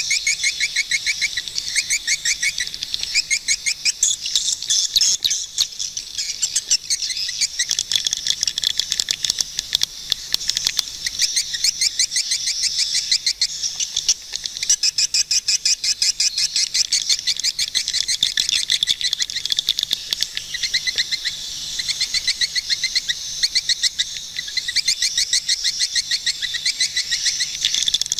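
Swiftlets calling: a continuous stream of rapid, high-pitched chirping twitters, many a second and overlapping.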